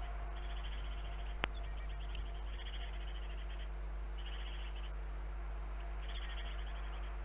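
Small birds at a winter bird feeder giving short, rapid trilled calls, repeated every second or so over a steady low electrical hum, with one sharp click about a second and a half in.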